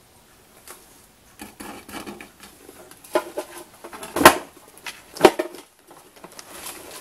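Cat scrabbling and squeezing through the gap under a door, with cans knocking and clattering under her paws as she forces her way in: three sharp clanks about three, four and five seconds in, the middle one loudest, between softer scraping and rustling.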